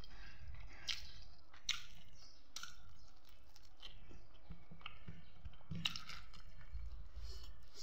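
Close-up chewing of curried chicken and rice, with a string of wet mouth smacks and clicks, several of them sharp.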